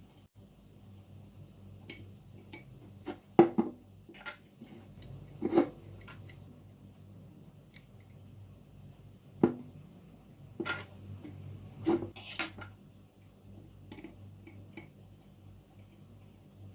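Scattered clicks, knocks and clatter of hard vacuum cleaner parts being handled, with the loudest knocks a few seconds apart.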